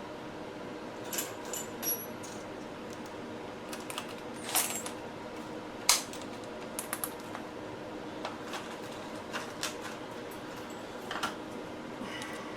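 Scattered light clicks and metallic clinks of hand tools and screws being handled, about ten sharp ticks spread irregularly, over a faint steady hum.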